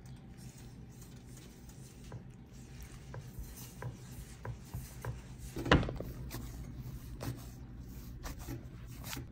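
Hands mixing flour, cornmeal and water and kneading it into spinner dumpling dough in a stainless steel bowl: soft rubbing and scraping with scattered light knocks, and one louder knock a little past halfway.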